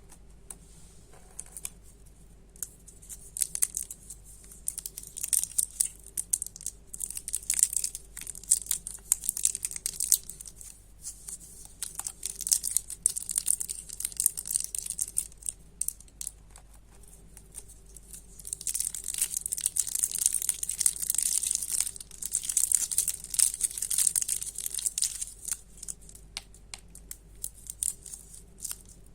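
Candy wrappers being crinkled and torn open, a dense crackling that comes in two long spells with scattered crinkles between them.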